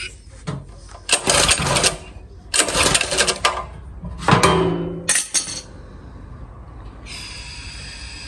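Portable generator being pull-started: four rattling pulls of the recoil starter in quick succession, the engine coughing briefly on one of them but not settling into running.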